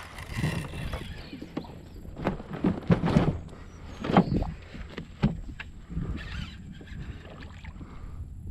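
Water splashing and irregular knocks around a kayak during the fight with a hooked redfish.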